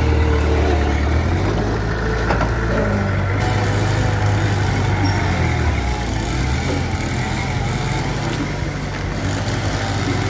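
Diesel engine of a Mitsubishi BD2F crawler bulldozer running steadily while it works, with a low drone and a slight change in its note a few seconds in.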